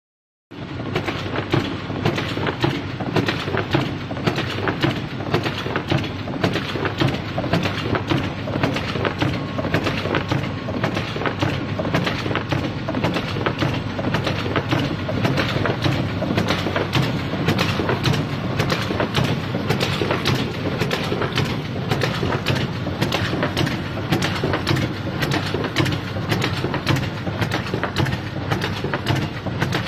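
Folder-gluer box machine running at production speed as corrugated board blanks feed through its belts and rollers: a steady mechanical rumble with a fast, even clacking.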